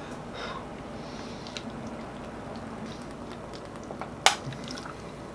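Water being drunk from a plastic bottle: soft gulping and swallowing, with one sharp click about four seconds in.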